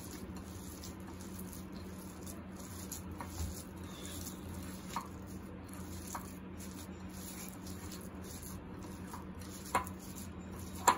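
Boiled chickpeas with chopped onion being mashed by hand in a bowl: faint soft squishing with a few light clicks, over a steady low hum.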